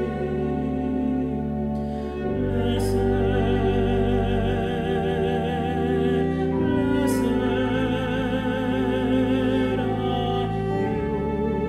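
Classical-style sacred music: a male voice singing with vibrato over sustained church organ chords and a bowed cello, the held notes changing every couple of seconds.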